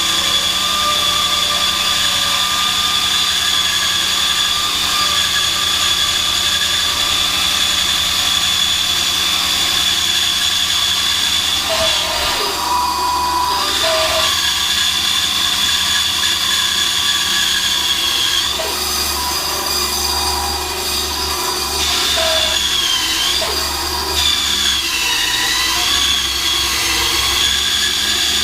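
Einhell band saw running and cutting through wood: a steady, loud whine whose pitch dips briefly a few times as the blade slows under the cut.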